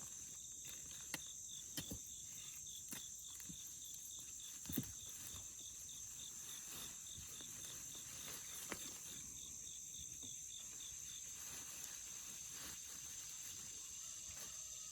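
Steady chorus of late-summer insects with a cricket chirping regularly, about three chirps a second, until it stops about eleven seconds in. A few faint knocks and one thump about five seconds in.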